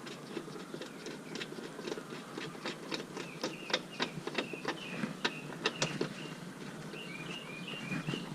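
Irregular sharp clicks and ticks of hand tools and screws as the headlight assembly's mounting screws are driven back in, busiest in the middle, with a run of short high chirps in the second half.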